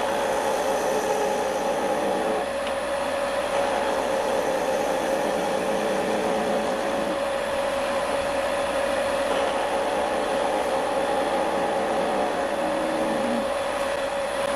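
Wood lathe running at steady speed, a constant motor hum with one steady tone, while a skew chisel cuts the spinning wood.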